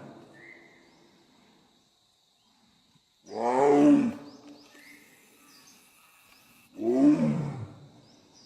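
Bengal tiger roaring: two loud roars about three and a half seconds apart, each lasting about a second and falling in pitch.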